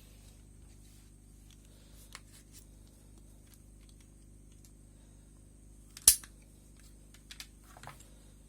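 A toy dart blaster firing once, a single sharp pop about six seconds in. A few lighter clicks come before and after it.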